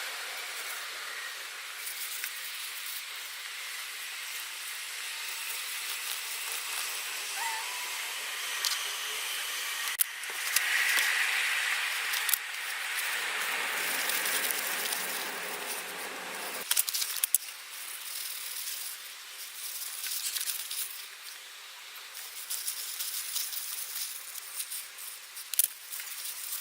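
Small metal parts and hand tools being handled, with scattered clinks and rattles over a steady hiss. A louder hissing stretch comes about ten seconds in.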